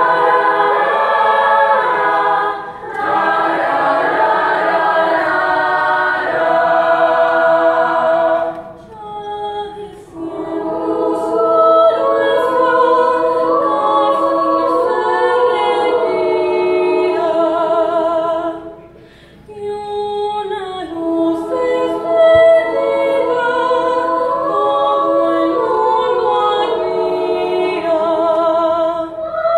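Mixed choir of young male and female voices singing in long held phrases, pausing briefly about three, nine and nineteen seconds in.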